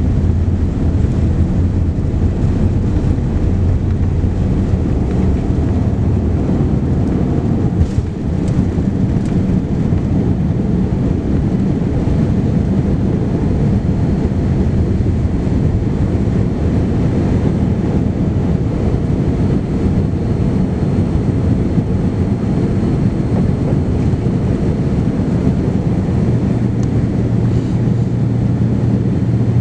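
Boeing 787-9 Dreamliner heard from inside the passenger cabin: a steady, loud low rumble of its engines and airflow, with a brief knock about eight seconds in.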